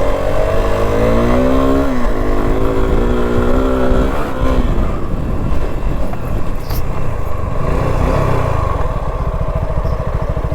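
Suzuki V-Strom SX 250's single-cylinder engine revving up twice in the first four seconds, then dropping to a slower, rougher run with its firing pulses plainly spaced near the end.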